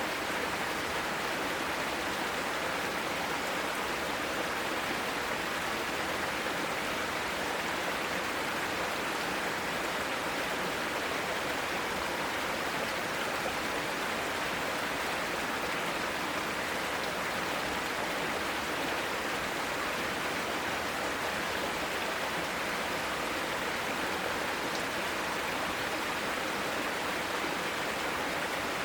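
Mountain stream rushing over rocks in a steady, unbroken wash of water noise.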